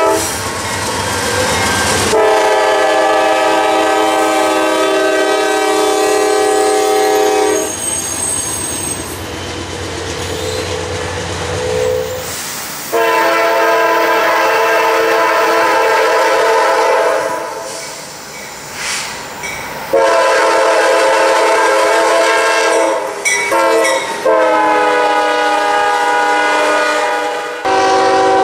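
Diesel freight locomotives sounding their multi-note air horns in about four long blasts. Between the blasts come the rumble and wheel clatter of passing freight trains.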